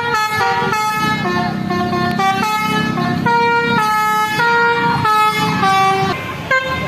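Telolet basuri musical horn on a vehicle playing a tune: a run of held, many-toned notes stepping up and down in pitch, changing about every half second.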